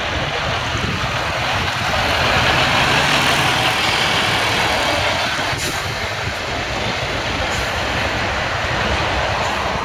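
A heavy police tow truck drives close past, its diesel engine and tyres making a steady rushing noise. The noise swells to its loudest in the middle as the truck goes by, then eases off as it pulls away, with street traffic behind it.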